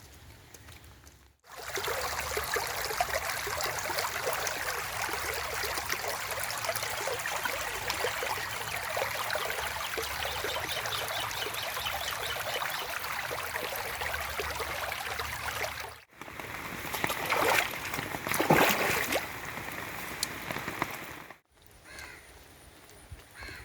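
Steady rushing of running water, cut off about a quarter of the way from the end; after it come a few louder, brief rustling or splashing noises.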